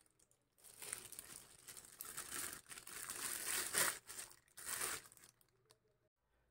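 Clear plastic bag around a cordless screwdriver crinkling as it is handled: irregular rustles starting about half a second in and stopping about five seconds in.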